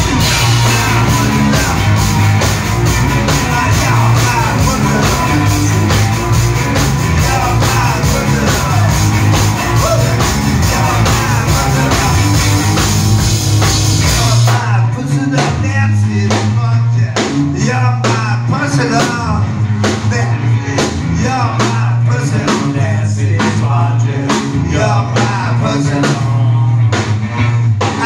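Live rock band playing loud: electric guitar, electric bass with a repeating bass line, and drums keeping a steady beat, heard from the audience. About halfway through the sound turns suddenly thinner and duller.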